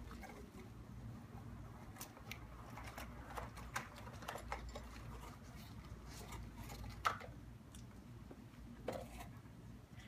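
Cardboard packaging being handled: scattered light scrapes and taps as a box's flaps and inner cardboard are moved about, with one sharper knock about two-thirds of the way through.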